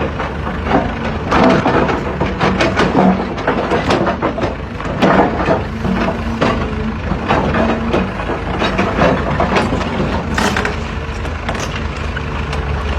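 Repeated sharp clanks and cracking knocks over a steady low engine rumble, typical of an excavator's track being worked on.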